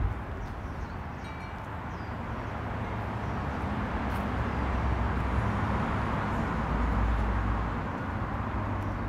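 Steady outdoor background noise: a low rumble that slowly swells and then eases, with a few faint high tinkles in the first couple of seconds.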